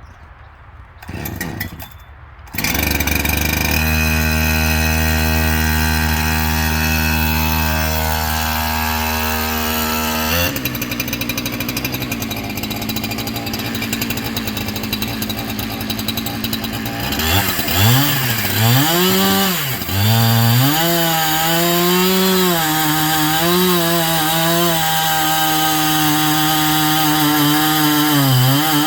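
Two-stroke chainsaw on a chainsaw mill starting up about two and a half seconds in, running at a steady idle, then revved to high speed about ten seconds in. From about seventeen seconds the engine pitch dips and rises again and again as it works under load.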